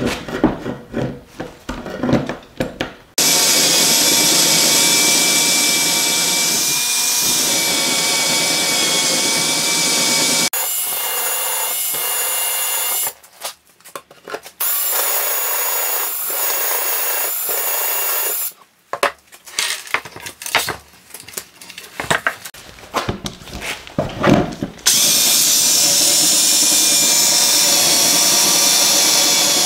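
Cordless drill boring holes through a wooden board with a wide bit: three long runs of a steady whine, several seconds each, with knocks and scraping between them as the drill is set down and moved.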